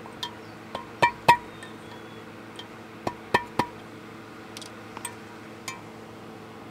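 Hammer tapping a metal drift to seat a hub part inside a boat propeller: about nine sharp taps in small clusters, each with a brief metallic ring.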